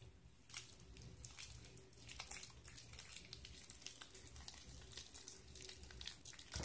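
Homemade borax slime being stretched and kneaded by hand, giving faint, irregular sticky clicks and crackles, one a little louder about two seconds in.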